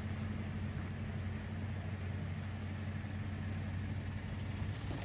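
Steady low hum of an idling engine over an even rushing hiss of fast-flowing river water.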